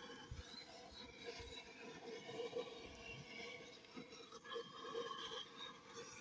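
Cutting torch flame hissing steadily against the cast iron block of a seized Farmall H engine, heating the water jackets to thin the oil and free the stuck pistons.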